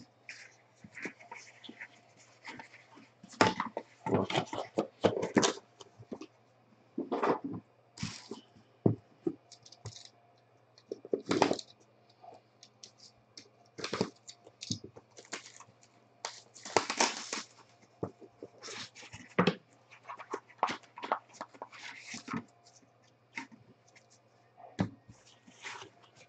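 Irregular rustling, scraping and tapping as trading card boxes, their plastic wrap and the cards are handled and opened on a table, in short bursts with quiet gaps, over a faint low steady hum.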